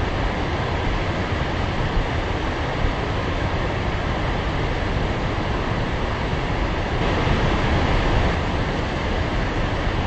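Large waterfall: a steady, heavy rush of falling water with a deep rumble underneath, swelling slightly about seven seconds in.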